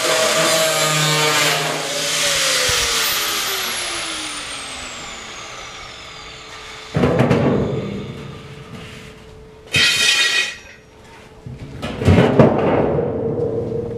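An angle grinder cutting a steel 55-gallon drum is switched off about a second in, and its whine falls in pitch as it spins down over about five seconds. The empty steel drum is then moved and stood upright, with three loud hollow metal knocks and scrapes about seven, ten and twelve seconds in, the last one ringing on.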